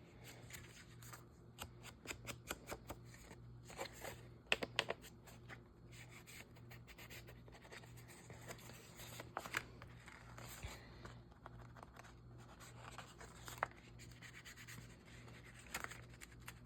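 Paper being handled on a tabletop: scattered light rustles, scrapes and taps as pages are creased and worked by hand, over a faint steady low hum.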